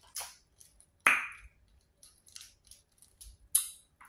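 Eating mouth sounds: short, scattered wet smacks and sucking as seafood-boil crawfish are eaten and sauce is licked off the fingers, with a louder smack about a second in and another near the end.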